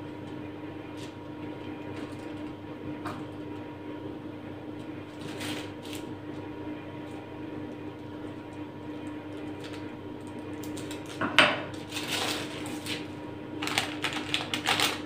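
Quiet handling over a steady low hum, then from about eleven seconds in a few quick runs of clinks and taps as a metal fork knocks against a dish and a wooden board.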